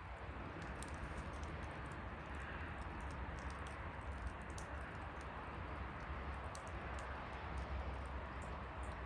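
Bonfire burning: wood crackling with many scattered sharp pops over a steady hiss and a low rumble.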